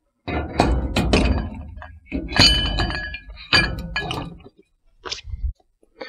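Metal knocks and clinks as a CPP disc brake rotor and hub assembly is handled and slid onto the front spindle over the inner wheel bearing, with a short metallic ring about two and a half seconds in.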